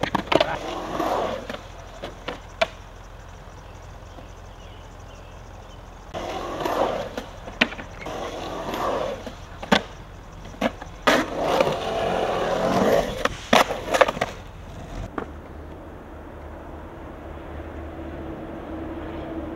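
Skateboard wheels rolling through a concrete bowl, with sharp clacks of the board hitting concrete and coping: a loose board clattering after a bail at the start, then a long stretch of rolling broken by repeated knocks from pops, landings and the coping. Near the end the skating stops, leaving only quiet outdoor background.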